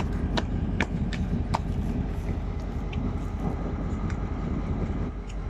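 Diesel locomotive engine running with a low, steady rumble, with a few sharp light clicks in the first couple of seconds.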